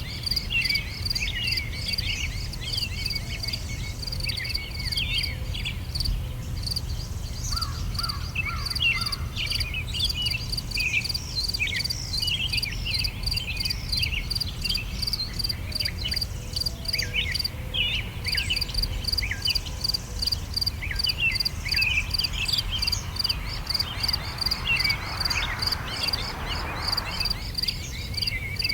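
Songbirds chirping and singing over a steady, evenly pulsing insect chirp, with a low rumble underneath. Near the end a soft rushing sound swells and fades.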